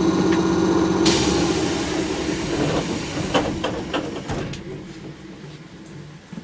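Keisei 3400 series electric train heard from inside the car: a steady humming drone, then about a second in a sudden hiss of air that fades away, a few sharp clicks, and the running noise dying down.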